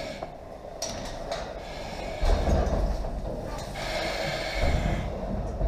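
Breathing through a firefighter's breathing-apparatus mask, with a hiss from the demand valve on two breaths, about a second in and again near 4 s. Dull knocks and rustling from gear moving through the metal cage come in between.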